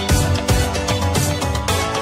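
Background music with a steady beat; no singing is heard in this stretch.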